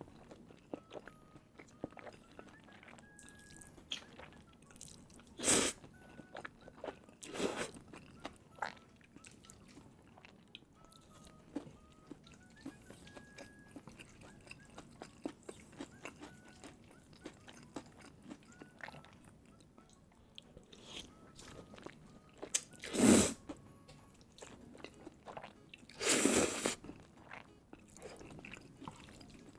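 Close-miked eating: steady chewing with small wet mouth clicks of cheesy instant noodles and crunchy chicken katsu, broken by four louder bites, about five and seven seconds in and twice near the end, the last one lasting about a second.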